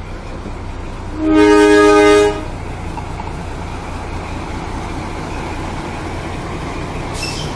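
Krupp-built BB304 diesel-hydraulic locomotive rolling slowly past with its diesel engine running steadily. About a second in it sounds its horn once, a loud blast of about a second. A short high-pitched sound comes near the end.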